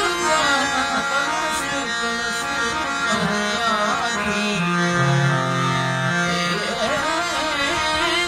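A man singing with harmonium accompaniment: his voice glides through long ornamented phrases over the harmonium's held reed notes.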